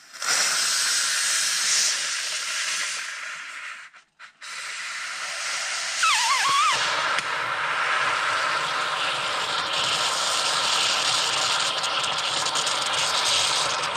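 Instant Pot pressure cooker's steam release valve venting a jet of hissing steam through a paper towel, a quick release of pressure after the cook cycle. The hiss cuts out briefly about four seconds in, then resumes.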